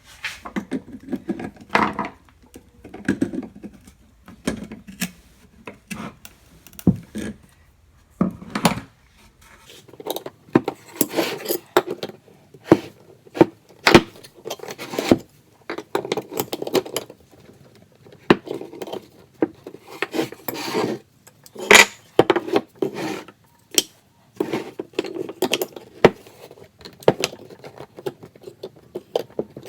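Pliers working a buckle out of a bent loudspeaker's stamped-metal frame: irregular clicks, scrapes and metal clinks as the jaws grip, slip and bend the frame, busier from about ten seconds in.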